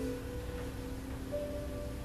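Slow live music from a school ensemble: long held notes that move to new pitches every second or so.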